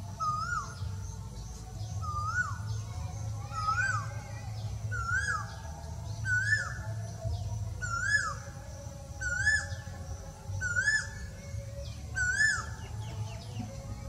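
Male Asian koel calling: a repeated series of two-part 'ko-el' notes, each rising then dropping, about one every second and a half. The notes climb slightly in pitch and grow louder through the series, over a steady low background hum.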